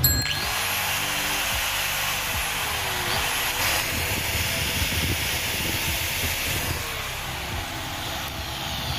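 DeWalt DW801 angle grinder running free with no disc fitted, a steady motor and gear running noise: a test run after its gear-side front bearing was replaced.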